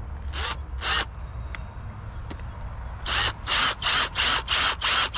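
Cordless drill with a small pilot bit, drilling into a motorcycle handguard in short trigger-pulsed bursts. There are two quick bursts near the start, then a rapid run of about seven short bursts in the last two seconds.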